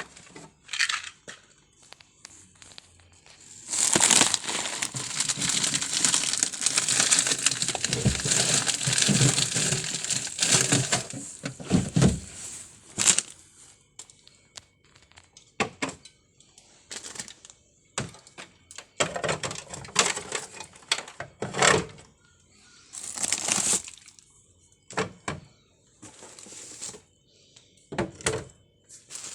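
Plastic bags and food packaging rustling and crinkling as groceries are handled, a long continuous stretch followed by shorter rustles and scattered clicks and knocks.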